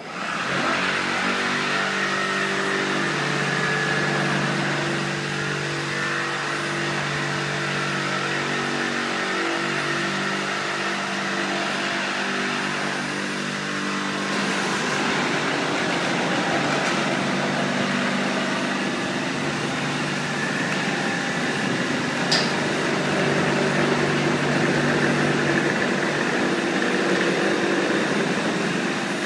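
Large industrial thermoforming (vacuum-forming) machine running through its cycle, moving its clamp frame and platen: a steady mechanical drone with several motor tones that shift in pitch every few seconds. A single sharp click comes about two-thirds of the way through.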